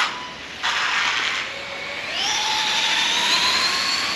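Electric motor of a Losi Promoto-MX radio-controlled motorcycle whining under throttle. There is a short burst under a second in, then from about halfway a long whine that climbs steadily in pitch as the bike accelerates.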